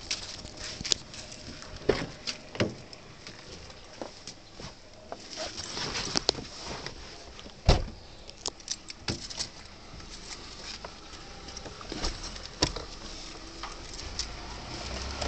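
Handling noise inside a parked car: scattered clicks, knocks and rustles as a bag and greenery are passed in through the open window, with one loud thump about halfway.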